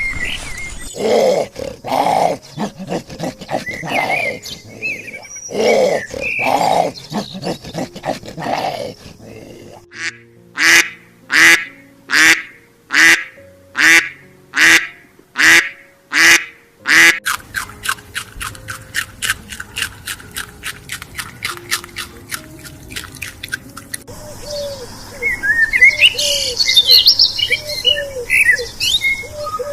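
A run of animal and bird calls that changes every several seconds: separate calls at first, then a string of about nine loud calls evenly spaced a little over half a second apart, then rapid ticking, and finally busy bird chirping.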